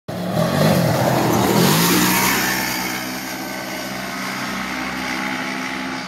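Side-by-side UTV engine revving up and down, then running at a fairly steady pitch as it drives off.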